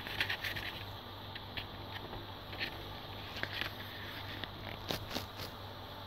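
Paper rustling and light scraping as a glossy photo notebook is handled and its pages turned, with a few sharp clicks about five seconds in, over a low steady hum.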